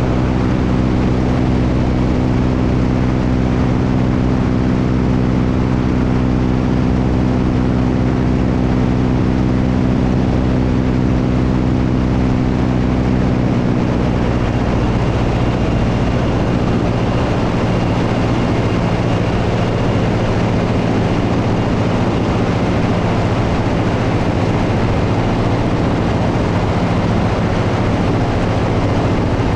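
Propeller airplane engine running steadily in flight, with heavy wind rushing over the microphone. About halfway through, the engine note changes and becomes rougher and noisier.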